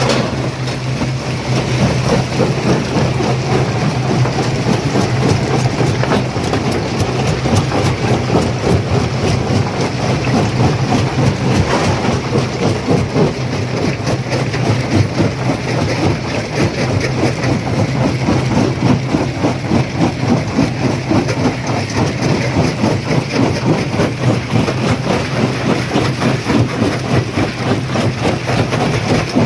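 Stone crusher running under load, breaking rock: a steady low machine hum under a dense, continuous clatter and knocking of stones being crushed.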